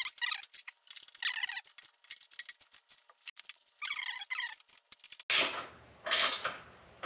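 Ratcheting wrench clicking rapidly as a bolt is run up tight, mixed with short, high, wavering squeaks. About five seconds in, a few metallic clanks of tools being handled.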